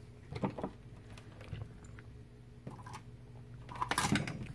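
Scattered light clicks and knocks of tools and a multimeter being handled and set down on a repair bench, the loudest cluster near the end, over a steady low electrical hum.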